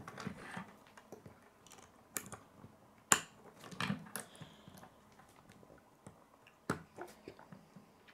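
Plastic K'nex pieces clicking as a grey connector is snapped onto a blue wheel and fitted to the model: scattered sharp clicks, the loudest about three seconds in.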